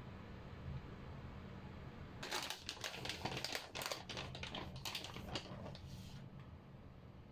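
Kitchen utensils clicking and scraping in a quick, irregular run for about four seconds, starting about two seconds in, as food is worked by hand.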